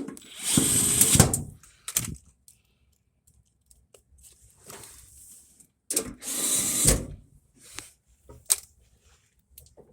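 A power tool run in two short bursts of about a second each, the first about half a second in and the second about six seconds in, with scattered clicks and knocks between.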